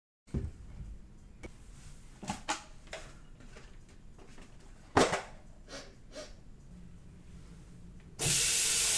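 Kitchen sounds: a wooden cabinet door clicking open and containers handled with scattered clicks and knocks, the loudest a sharp click about five seconds in. Near the end the tap is turned on and water runs steadily into a plastic electric kettle.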